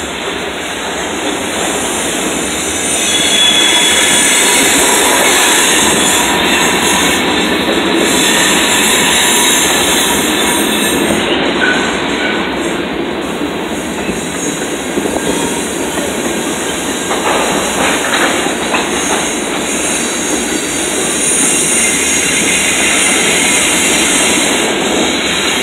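Freight cars (covered hoppers and tank cars) rolling past: a loud, steady rumble of steel wheels on the rails, with faint high wheel squeals now and then.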